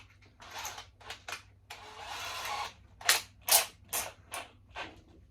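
Workshop handling noise: a scraping, rustling clatter, then a run of about five sharp knocks roughly half a second apart in the second half.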